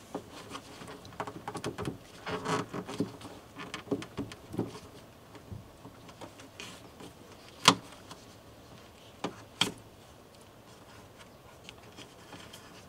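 Rubber hood weather strip of a 2019 Chevrolet Silverado being pulled away from the hood's sheet metal, with rustling and scraping. Its plastic push pins pop out with two sharp clicks a couple of seconds apart past the middle.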